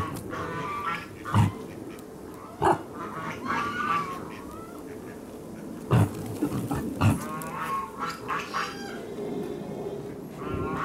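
Collared peccary grunting close by: about four short, sharp grunts spread across a few seconds.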